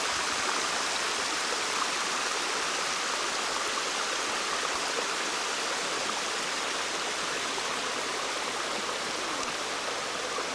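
A stream running steadily, making an even rushing sound of water.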